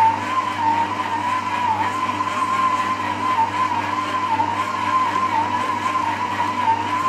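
Electric stand mixer motor running steadily with a high whine while it mixes bread dough. The pitch sags briefly every second or so as the dough loads the motor.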